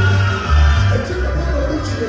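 Cumbia dance music played loud over a sonido sound system, with a heavy, pulsing bass.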